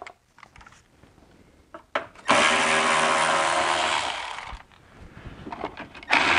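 Cordless power ratchet running for about two seconds, starting about two seconds in, spinning off a fastener. It runs down, then starts again just before the end, with a few light clicks of handling in between.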